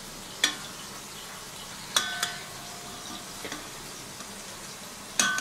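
Kitchen tongs knocking against a stainless steel bowl three times while turning egg-soaked toast, the later strikes ringing briefly like metal. A steady sizzle of food frying runs underneath.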